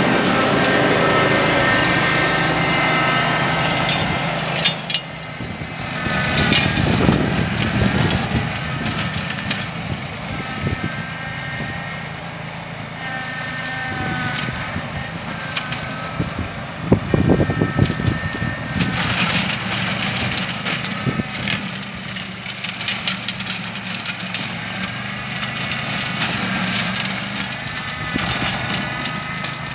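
Canycom CMX 227 4WD ride-on brush cutter running steadily as its blade smashes through woody stems and willow scrub, with many sharp cracks and snaps. The engine note dips and recovers now and then as it takes the load.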